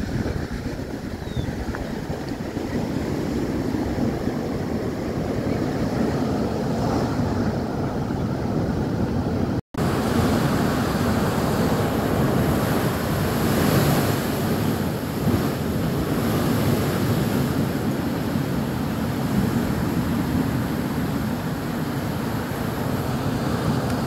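Seawater from high spring-tide swell overtopping the sea front: surf rushes across the flooded quay and street, then waves break over a slipway and pour off the seawall in a steady roar. A brief dropout about ten seconds in.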